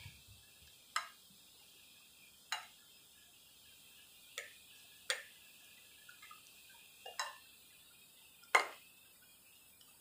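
Metal spoon clinking against a plate as food is worked and scooped up: about seven light, separate clinks, the loudest near the end.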